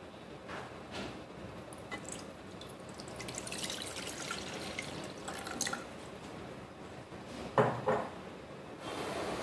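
Kitchen sounds: water dripping and trickling with scattered light clinks, then two louder knocks near the end.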